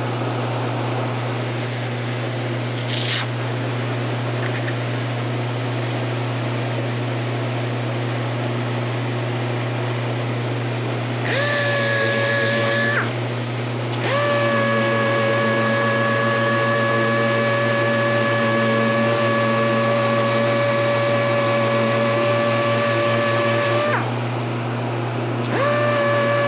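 Pneumatic random orbital sander running on a guitar neck during finish sanding, over a constant low hum. Its steady whine is absent for the first third or so, then runs with two brief breaks.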